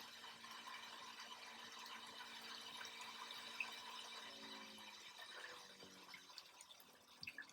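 Solar-powered water pump running with a faint steady hum, then winding down in falling pitch from about four seconds in until it stops. The pressure switch has cut the pump out because the system has reached pressure.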